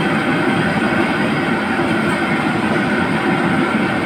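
Commercial wok range running: the open gas burner and the kitchen ventilation make a steady, loud rushing noise.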